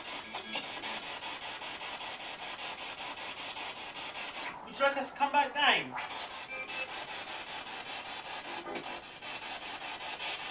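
Spirit box scanning through radio stations: a steady hiss of static, broken about five seconds in by a short, louder, garbled snatch of radio sound.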